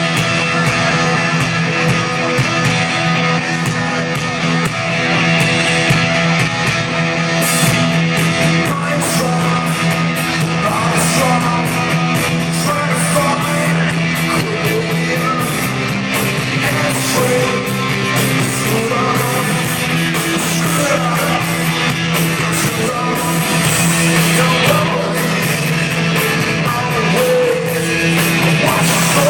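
Alternative rock band playing live, with guitars and a singing voice over a steady, loud band sound.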